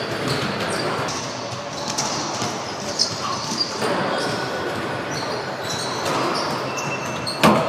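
Racquetball rally: the rubber ball smacking off racquets and court walls in sharp cracks, the loudest near the end, with short high squeaks of sneakers on the hardwood floor.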